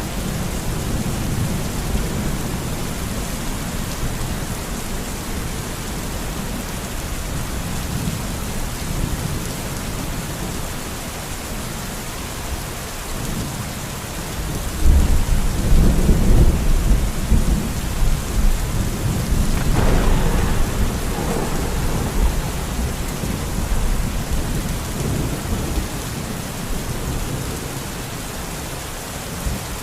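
Steady rain falling, with a sudden low roll of thunder about halfway through that rumbles for several seconds and then fades back under the rain.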